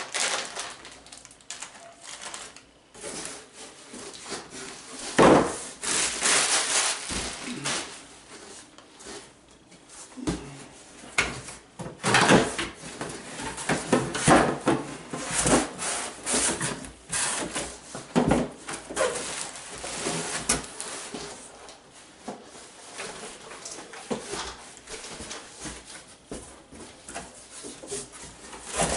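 Unpacking noises: a plastic bag of drum mounting hardware rustling in the hands, then cardboard box flaps and packing being rummaged through, with irregular bumps and scrapes, the loudest about five seconds in.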